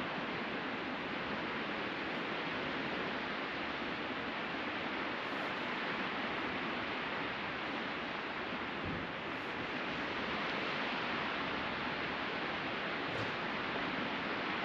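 Sea surf washing onto a beach: a steady rushing noise with no distinct breaks.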